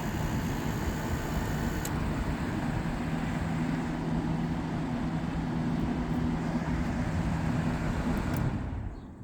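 1987 Montgomery Ward by Frigidaire 7000 BTU window air conditioner (VWE-5157A) running: a steady rush of air from the fan over a low hum from the compressor. The hum stops about eight and a half seconds in, and the airflow dies away over the next second.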